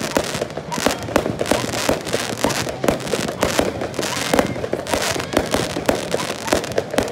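Aerial fireworks display: shells bursting overhead in a dense, unbroken barrage of bangs and crackles, several a second.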